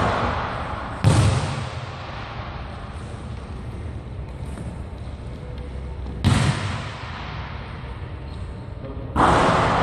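A basketball thudding hard against the hoop and the hardwood floor of a large gym. Three loud, echoing impacts: one about a second in, one about six seconds in, and a longer, noisier one near the end.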